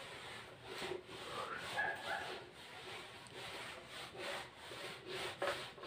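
Whiteboard eraser wiping marker writing off a whiteboard in repeated back-and-forth strokes, with a brief squeak about a second and a half in.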